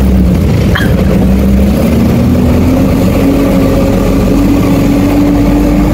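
Truck engine running as the truck drives slowly, heard from inside the cab; the engine note climbs gradually from about two seconds in and holds at the higher pitch.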